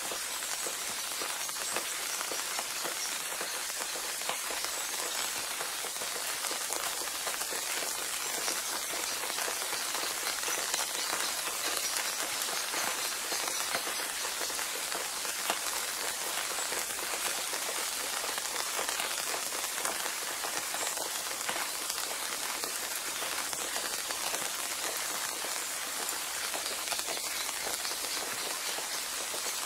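Steady rain sound: an even hiss of countless small drop patters that does not change.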